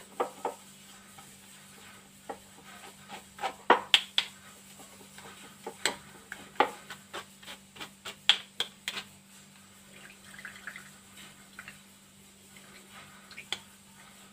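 Grated cucumber being pressed and stirred in a plastic strainer with a utensil to strain out its juice: irregular scrapes and light taps, thicker in the first half and sparser near the end. A faint steady electrical hum runs underneath.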